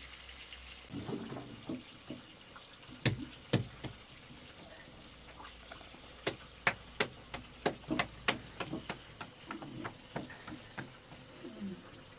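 A series of sharp clicks or knocks: two about half a second apart a few seconds in, then a quick run of about ten at roughly three a second in the middle.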